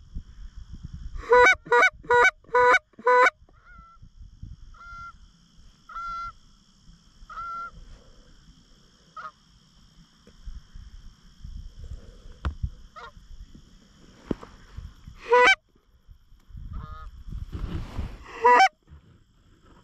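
Canada goose honking: a fast run of five loud honks about a second in, fainter single honks over the next several seconds, and more loud honks near the middle and just before the end. A faint steady high whine runs underneath from about four seconds in.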